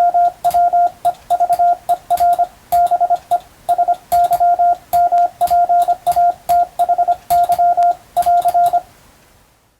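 Hand-sent Morse code (CW): a single steady beep tone keyed on and off in dots and dashes, with sharp clicks at the key strokes. The sending stops about nine seconds in and fades out.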